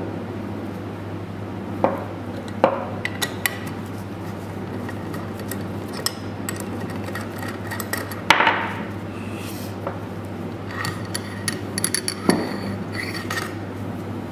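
Metal tools and parts clinking and knocking as the tie rods and nuts of a pneumatic cylinder are worked loose and set down, in irregular single strikes with a short ring, over a steady low hum.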